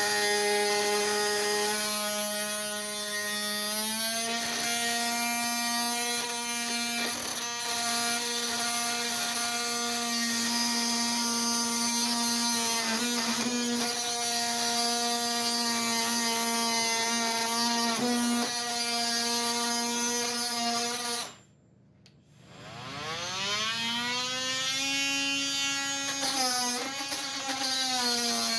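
Oscillating multi-tool running with a steady buzz, its bi-metal blade cutting into screws in wood. The pitch wavers under load. About 21 seconds in the tool stops briefly, then spins back up with a rising whine.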